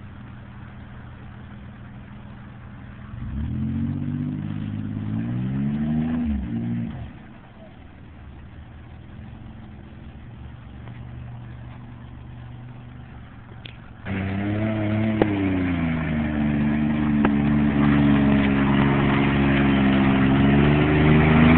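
Toyota SR5 4x4 pickup's engine idling, briefly revving up and falling back to idle, then suddenly revved hard and held at high revs under load while climbing a steep off-road hill, dropping away sharply at the end.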